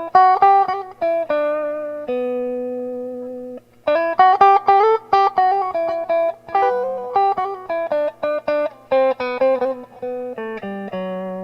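Dean C350F electric guitar played through a Crate CR-280 150-watt amplifier on a clean sound: a melody of single picked notes, with one long held note about two seconds in, then a short break and a quicker run of notes. A faint steady hum sits underneath.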